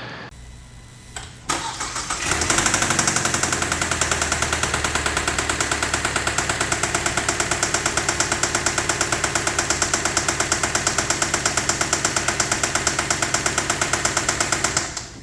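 A Kia K5 2.0-litre gasoline engine cranks briefly and starts, then runs with a loud, fast, even tak-tak-tak knocking before it cuts out near the end. The noise comes from damage inside the engine that shows up with timing fault codes (chain or crankshaft). The mechanic takes it for a lubrication problem.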